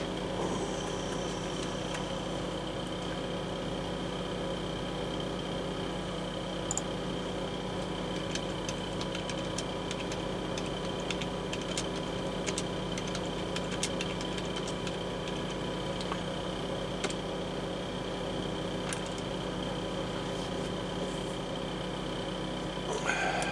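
A steady mechanical hum like a fan or small motor, holding several fixed tones, with scattered light clicks from small plastic model-kit parts being handled and fitted.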